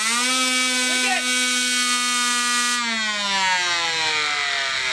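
3D-printed Tesla turbine running flat out on compressed air at 8 bar: a loud rush of air with a high, steady whine. About three seconds in the hiss thins and the whine starts to fall in pitch as the turbine slows.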